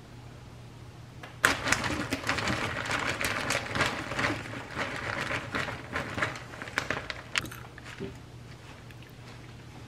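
A plastic bag crinkling as packaged salad mix is shaken out of it into a plastic colander, with the leaves rustling. It starts suddenly about a second and a half in and thins out near the end.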